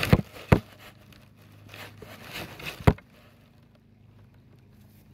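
Handling noise on a phone's microphone as it is settled on the grass: three sharp knocks, two close together at the start and one about three seconds in, with light rustling between.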